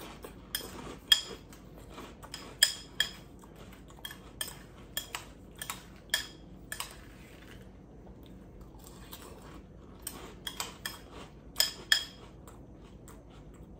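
A metal spoon clinking against a cereal bowl as cereal and milk are scooped up: a string of sharp, ringing clinks, with a lull of a couple of seconds past the middle before a few more clinks near the end.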